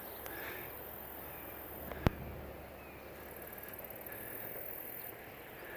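Quiet outdoor wetland ambience with faint distant bird and insect calls, and a single sharp click about two seconds in.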